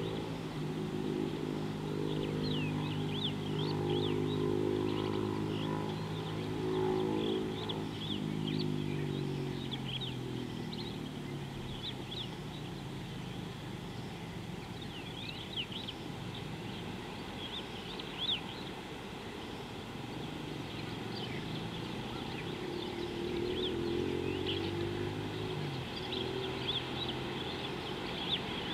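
A distant engine hums steadily, its pitch falling about eight seconds in, as if the vehicle is passing or moving away. Small birds chirp throughout.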